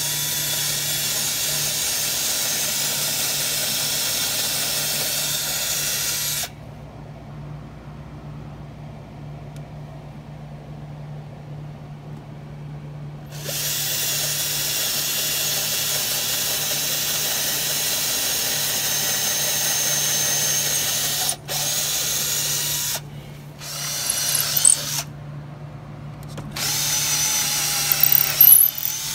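Makita cordless drill boring into a wooden upright, whirring steadily in runs: one of about six seconds, then after a pause a longer run of about eight seconds, then several shorter bursts near the end.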